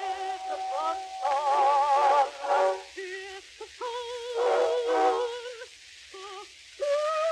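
A contralto voice with piano accompaniment, played from a worn early 78 rpm record, with the record's hiss and its narrow, band-limited sound. She sings held notes with a wide vibrato. Near the end the voice drops out briefly over a soft piano, then comes back on a higher held note.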